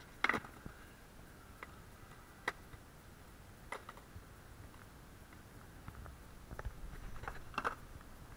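A skateboard clacking against concrete: several sharp knocks of the board's tail and wheels at irregular intervals, the loudest about a quarter second in and a few close together near the end.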